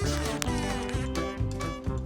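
Music with plucked string notes and a steady beat.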